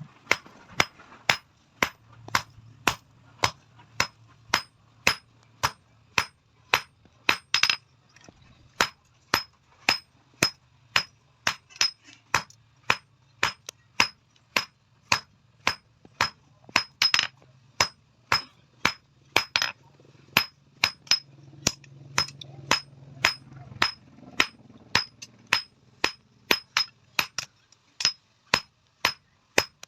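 A blacksmith's hand hammer beating an iron tawa (flat griddle plate) at a steady pace of about two blows a second. Each blow is a sharp metallic clink with a short high ring, and a few blows land harder than the rest.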